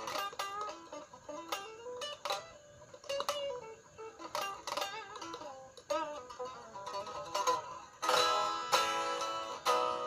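Ibanez RG350DX electric guitar played through a VOX Soundbox Mini amp. It plays single-note melodic lines with bends and slides, then louder strummed chords from about eight seconds in.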